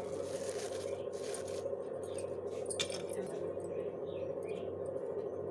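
A steady background hum, with a few light clinks and rustles from leaves and small bowls being handled; one clink stands out about three seconds in.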